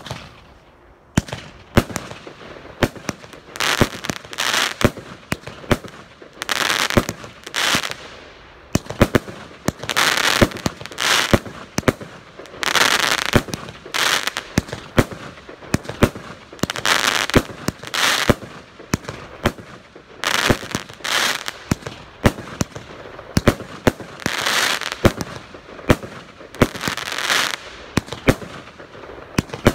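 A 36-shot fireworks cake firing one shot after another, about one a second. Each shot is a sharp bang, followed by the hissing crackle of its bursting stars.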